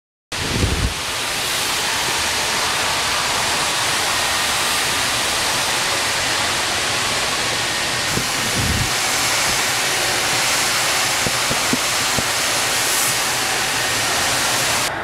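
Steady hiss of spray painting, paint being sprayed onto an aircraft fuselage, starting abruptly just after the beginning, with a low thump near the start and another about eight seconds in.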